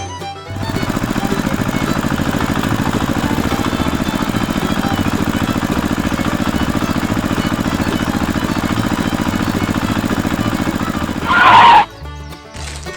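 A small motor running steadily with a fast, even pulse. Near the end there is a brief, louder and higher burst, and then it cuts off suddenly.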